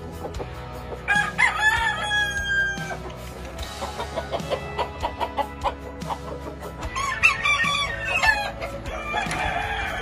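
Roosters crowing: one long crow about a second in, another about seven seconds in, and a shorter call near the end, over background music.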